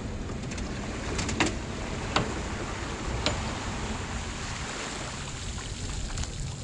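A 24 ft bay boat on its trailer being hauled up a launch ramp out of the water: a steady rush of water pouring and splashing off the hull and trailer, with a few sharp knocks in the first half.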